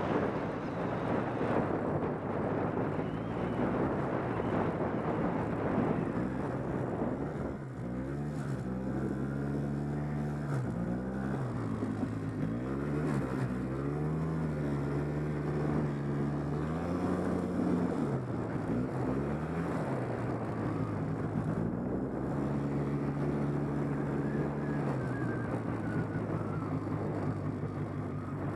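ATV engine running while being ridden through snow. Its revs rise and fall over and over through the middle stretch, with a rush of wind noise over the engine for the first several seconds.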